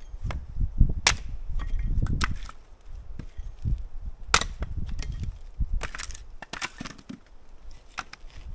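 An axe chopping firewood rounds. Sharp, cracking blows a second or two apart, each with a dull thud of wood splitting.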